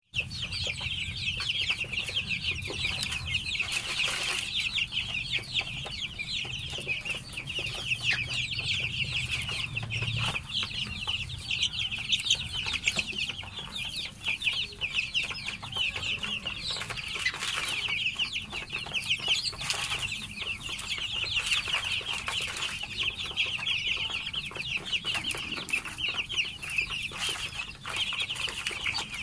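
A flock of half-grown Lohmann Brown and black chicks peeping without pause, many high calls overlapping, with scattered light clicks.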